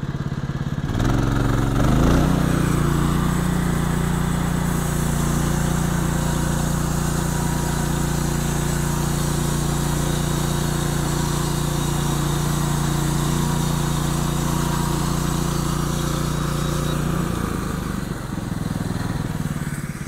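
The engine of a Norwood LM29 portable band sawmill is throttled up from idle about a second in and then runs steadily at high throttle while the bandsaw blade is pushed through a cant to cut a 2x6. Near the end it drops back to a lower idle.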